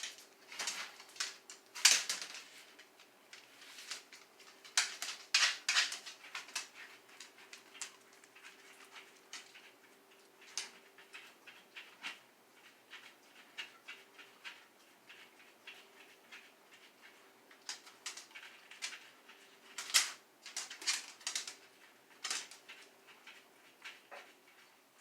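A dachshund working at a treat-dispensing puzzle toy: scattered clicks, scrapes and knocks at irregular intervals as the toy is nosed and pushed about, over a faint steady hum.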